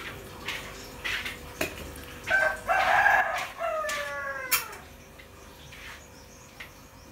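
A rooster crowing once: one crow of about two seconds that drops in pitch at the end. A few light knocks come before it.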